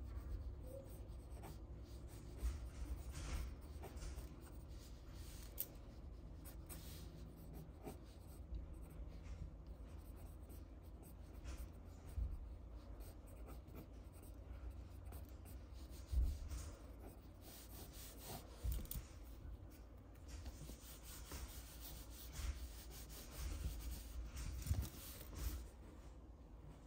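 Pencil sketching on paper: the lead scratches across the sheet in quick, irregular strokes, with a few soft knocks of the hand against the paper and desk.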